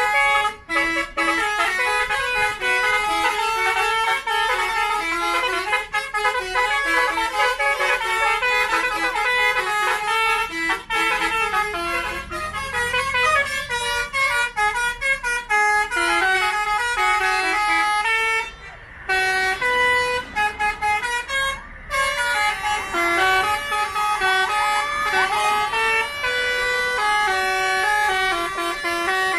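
Indonesian bus 'telolet' basuri horns playing tunes of quick stepped notes, several horns sounding at once, with two short breaks about 19 and 22 seconds in.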